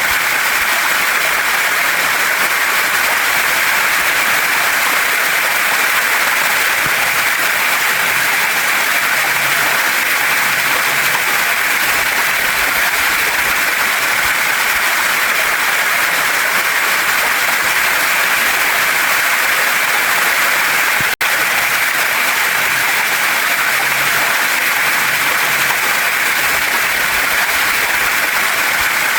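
Waterfall and mountain stream: a steady, dense rush of water over rocks. It cuts out for an instant about 21 seconds in.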